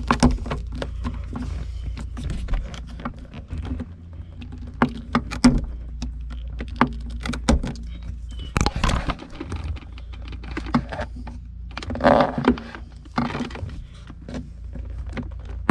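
Screwdriver clicking and scraping against the metal staple-like clip and plastic trim at the base of a car's automatic shifter as the clip is worked loose, many irregular sharp clicks and knocks over a steady low hum.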